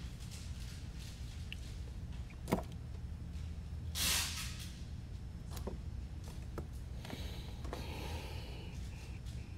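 Handling noises on a workbench: a sharp click about two and a half seconds in, a short hiss about four seconds in and a few lighter ticks, over a steady low hum.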